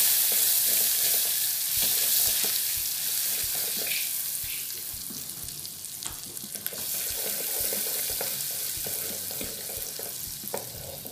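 Margarine sizzling in hot melted caramelized sugar as it is stirred with a wooden spatula, with small scrapes and taps of the spatula against the pot. The sizzle is loudest at the start and gradually dies down.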